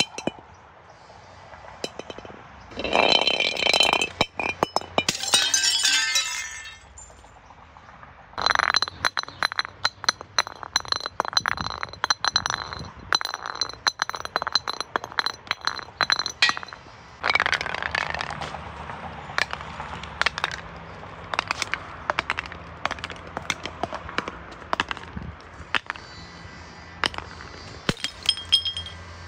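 Glass bottles breaking, then broken glass clinking and rattling. Two loud bursts come in the first few seconds, followed by a long run of rapid sharp clinks with a ringing note, which thins into scattered clinks.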